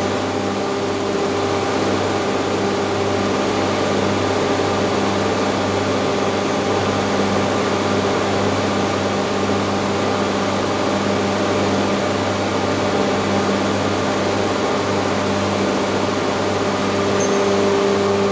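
Steady hum of running industrial machinery: a constant low drone with a few unchanging tones, no change in speed or load.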